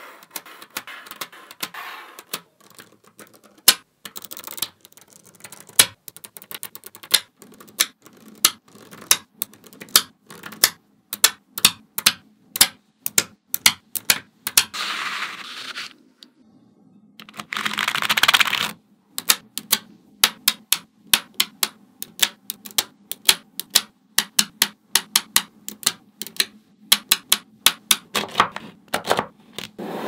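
Small magnetic balls clicking sharply as they snap onto one another, dozens of unevenly spaced clicks. Around the middle there are two longer stretches of rubbing as a sheet of balls is slid and pressed by hand.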